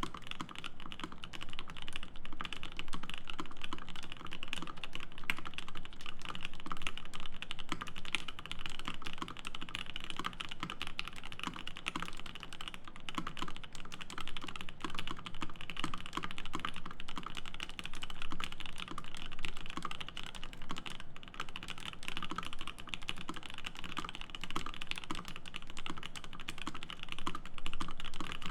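Continuous fast typing on a Bauer 8008 mechanical keyboard with an aluminium plate, lubed Gateron Ink linear switches and GMK keycaps: a dense, steady stream of keystroke clacks.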